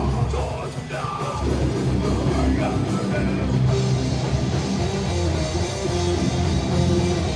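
Live heavy metal band playing loud and dense, with distorted electric guitars, bass and drum kit, the cymbals growing brighter about halfway through.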